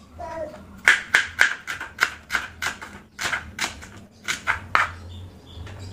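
Kitchen knife slicing shallots and garlic cloves on a plastic cutting board: a quick run of sharp taps, about four a second, with a brief break about three seconds in.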